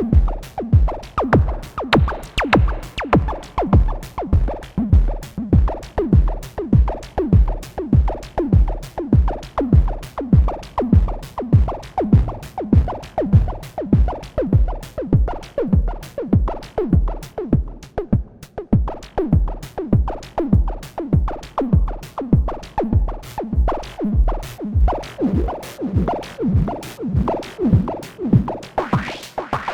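Moog DFAM analog percussion synthesizer playing a sequenced pattern of electronic drum hits in a steady fast rhythm, each hit falling quickly in pitch. Near the end a rising sweep builds through the pattern.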